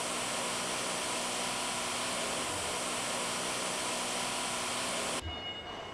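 Factory hall ambience: a steady rushing noise that cuts off suddenly about five seconds in, giving way to a quieter sound with a few steady high tones.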